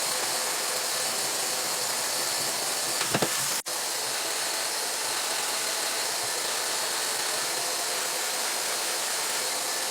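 Handheld blow dryer running at a steady high setting, a loud even rush of blown air that drops out for an instant about three and a half seconds in.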